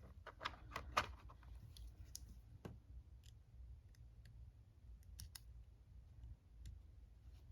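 Light clicks and taps: a quick run of clicks in the first second, then a few scattered single clicks.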